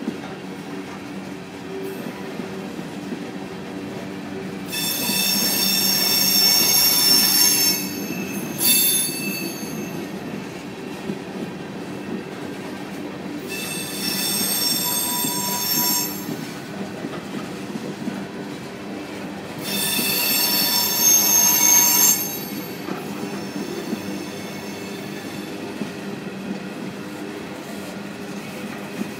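Freight train of open-top hopper cars rolling past with a steady rumble of wheels on rail. Three bouts of high-pitched, many-toned wheel squeal rise above it: about five seconds in, again near the middle, and once more about two-thirds through.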